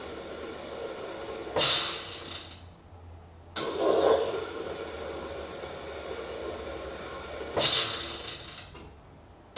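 Carimali Multi coffee machine's milk foaming device flushing rinse water through the milk lines in stop-start pulses: a rushing, hissing flow that surges, dies away, and starts again abruptly, about every six seconds.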